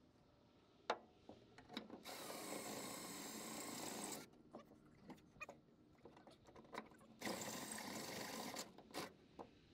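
Handheld power drill boring down through a pickup truck's bed in two bursts, the first about two seconds long and the second about a second and a half, with small clicks and knocks between.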